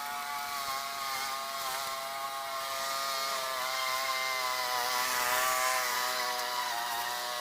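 Briggs & Stratton 140cc single-cylinder four-stroke engine of a walk-behind lawn mower running steadily, its pitch wavering slightly up and down.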